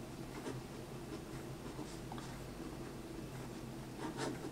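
Pen writing on the paper page of a book: faint, irregular scratching strokes of the pen tip, a few sharper ones about four seconds in, over a steady low hum.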